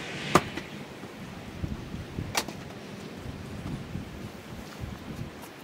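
Sharp wooden knocks from firewood being handled and split with a splitting maul: a loud knock about half a second in, a lighter click a couple of seconds later, and another sharp strike at the very end. A steady wind hiss runs underneath.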